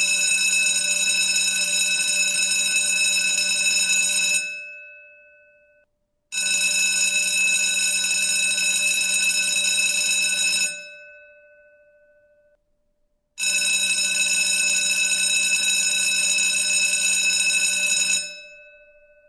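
School bell ringing in three long rings of about four to five seconds each, with short gaps between them. At the end of each ring the gong hums on and fades away.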